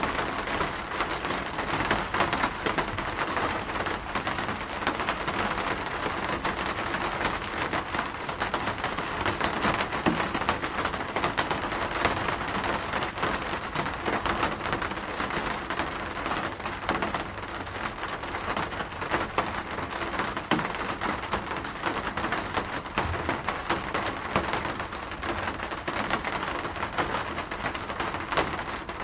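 Steady rain with a dense patter of individual raindrops ticking. It keeps an even level throughout.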